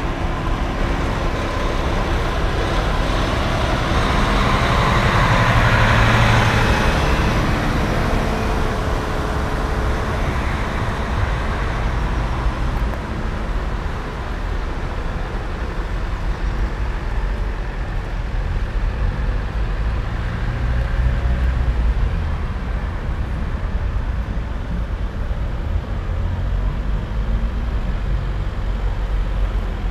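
Road traffic passing close on a wet road: a steady rumble of engines with the hiss of tyres on wet tarmac. A heavy tipper lorry's diesel engine swells past about four to seven seconds in, the loudest moment, with a smaller swell of passing vehicles around twenty seconds in.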